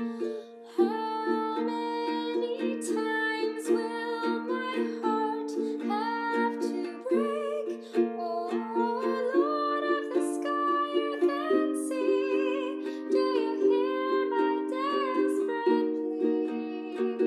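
A slow song: a singing voice with vibrato over chords strummed steadily on a plucked-string instrument. The sound dips briefly just under a second in.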